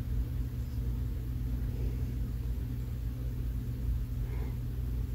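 Steady low hum and rumble, with a faint brief sound about four seconds in.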